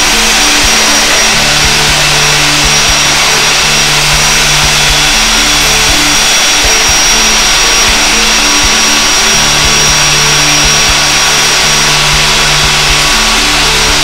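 Ryobi 18V ONE+ cordless wet/dry vacuum running steadily while its hose sucks up small scraps from the floor: a loud, even hiss with a faint high whistle. Background music with a repeating low pattern plays underneath.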